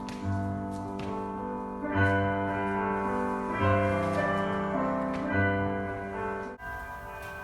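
Piano music: sustained chords over a low bass note struck again about every second and a half. It cuts off abruptly near the end.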